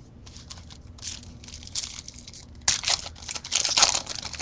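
A 2010 Topps Chrome baseball card pack wrapper being torn open and crinkled: irregular bursts of rustling starting about a second in and loudest near the end.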